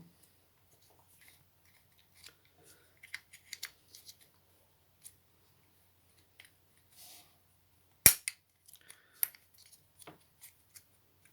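Disassembled Mercedes W169 A-Class tailgate latch being worked by hand, its motor removed: light plastic clicks and small knocks from the gear wheel and latch parts, then one sharp, loud snap about eight seconds in and a few more clicks.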